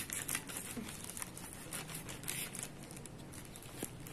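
Plastic courier mailer crinkling and tearing as a paper cutter blade slices it open, a run of short, irregular scratchy crackles.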